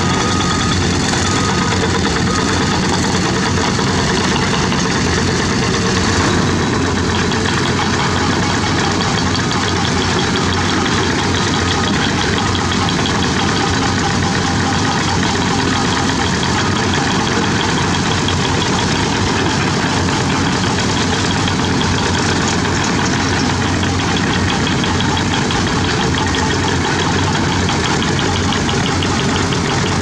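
Diesel engines of crawler excavators and bulldozers running steadily under work. The sound changes about six seconds in.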